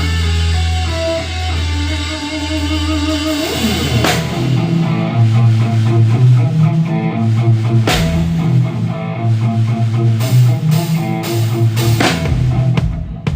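Rock band playing live without vocals: a held electric guitar chord, then drum kit and bass guitar come in about four seconds in, with cymbal crashes every few seconds and a quick run of drum hits near the end.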